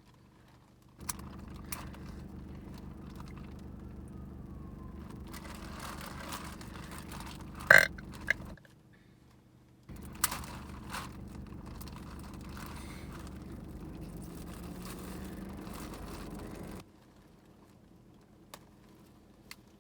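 A loud, short burp about eight seconds in, amid small clicks and crunches from eating seafood, over a steady low hum that cuts in and out.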